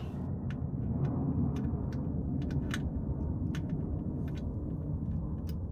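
Ratchet of a torque wrench clicking a few separate times as it tightens a transmission drain bolt, over a steady low rumble.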